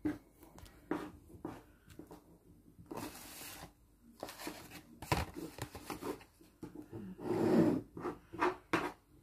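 Knife cutting mozzarella into cubes on a plastic cutting board: irregular soft knocks and taps of the blade against the board.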